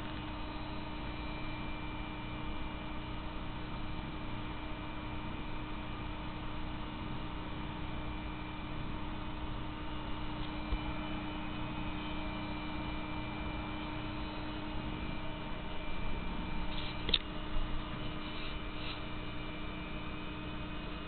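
Steady electrical hum with a few faint clicks about two-thirds of the way through.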